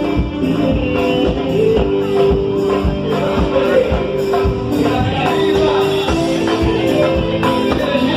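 A band playing Bahian axé music, with singing over a steady percussion beat of about two strokes a second.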